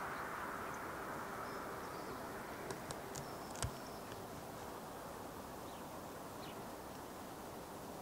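Faint outdoor background: the hiss of a passing road vehicle fades away over the first few seconds, with a few faint high bird chirps and one sharp knock a little over three and a half seconds in.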